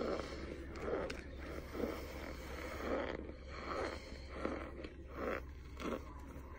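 Close-up chewing and crunching of chalky starch chunks, in a steady rhythm of about one chew a second with a few sharp clicks.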